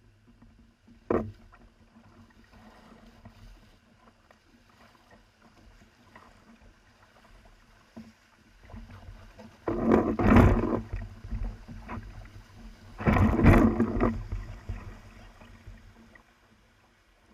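Kayak on a river: water sloshing and splashing around the hull and paddle, with a sharp knock about a second in and two louder splashes, each lasting about a second, near the end.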